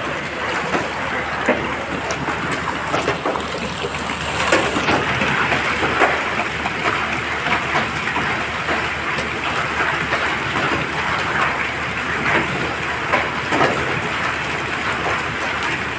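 Heavy rain pouring steadily, a dense hiss with many sharp drop impacts on hard surfaces.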